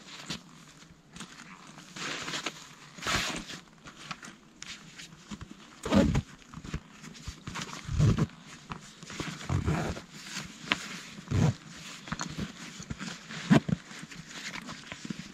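Scattered low thumps and rustling: about half a dozen soft knocks spread irregularly over the seconds, with faint rustling between them.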